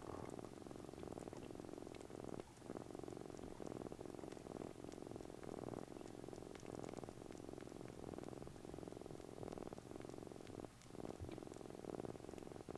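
A brown mackerel tabby kitten purring steadily close up, pausing briefly twice, about two and a half seconds in and again near the end.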